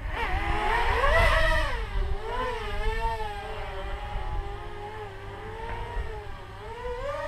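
Blackout Mini H quadcopter's four 1806 2300 kV brushless motors with 5-inch props whining in flight, the pitch rising and falling with the throttle. Loudest about a second in, then steadier and lower.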